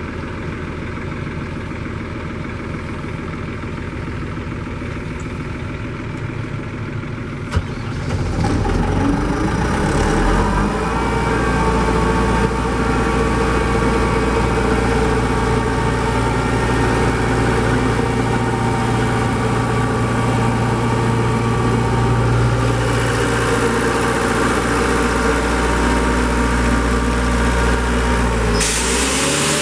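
Deutz turbo diesel engine of an Atlas Copco XAS 136 DD portable air compressor running steadily, stepping up to a louder, deeper, faster run a quarter of the way in. A loud hiss joins near the end.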